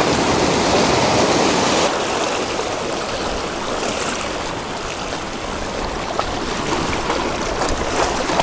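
Sea surf washing and churning over a lava-rock shore, a steady rush of water that eases a little about two seconds in. A few short clicks sound near the end.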